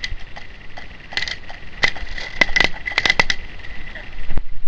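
Airsoft skirmish: scattered sharp cracks of airsoft guns firing and BBs smacking into plywood walls, bunching into quick runs of hits around two and three seconds in, with a loud hit near the end.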